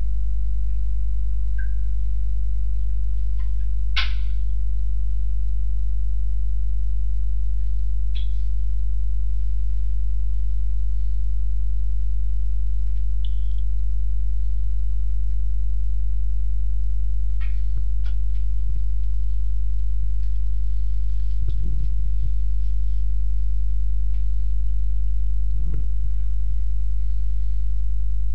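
Steady low electrical mains hum, with a few faint scattered clicks, the clearest about four seconds in.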